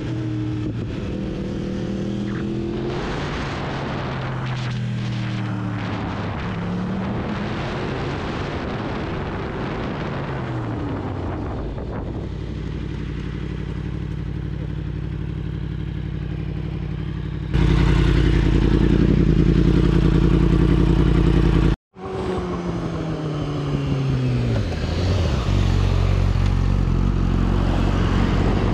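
Yamaha sport motorcycle engine heard from the bike as it is ridden, its pitch rising and falling through revs and gear changes. The engine gets suddenly louder about two-thirds of the way in and cuts out for a moment. After that the note falls away as the bike slows.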